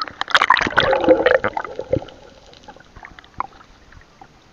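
Water splashing and sloshing, busiest in the first two seconds, then only a few scattered drips and small knocks.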